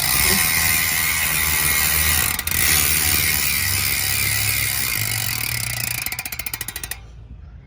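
Loud, tuned SS901 freehub on a dirt-jump bike buzzing as the wheel coasts, the pawls ratcheting fast. Near the end the clicks slow into separate ticks as the wheel winds down, then stop.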